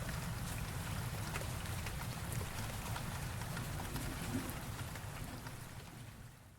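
Steady rainfall with scattered drop ticks over a low rumble, fading out during the last second.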